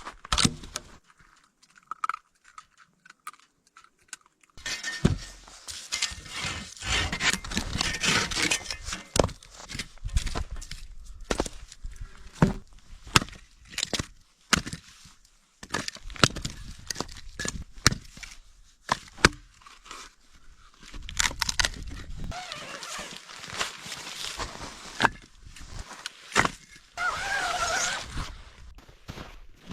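Irregular sharp snaps and knocks, with stretches of rustling and crunching between them, as of someone handling things by hand.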